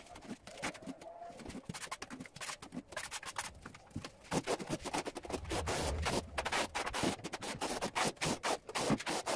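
Notched steel trowel scraping and combing tile adhesive across a concrete floor in a quick run of rough strokes, which get louder and denser about halfway through.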